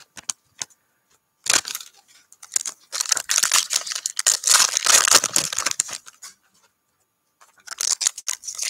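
Panini NBA Hoops foil trading-card packs being torn open, the wrappers crinkling in the hands. The sound comes in bursts with short silent pauses: a brief rip, a longer stretch of tearing and crinkling, then another near the end.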